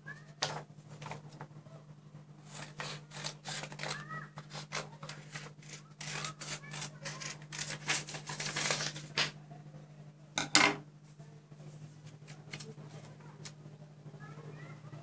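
Scissors snipping through a sheet of paper in a run of short cuts, with paper rustling as it is handled, and a louder knock about ten and a half seconds in.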